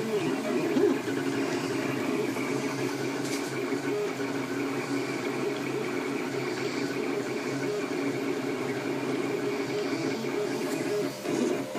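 3D printer running a print: its stepper motors whine in tones that rise and fall as the print head moves, over a steady higher hum.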